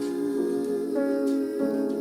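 A soft song with sustained hummed or sung notes over a gentle instrumental backing.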